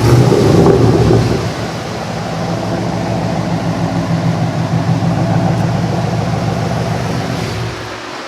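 A car engine running: louder for about the first second, then a steady drone that drops off near the end.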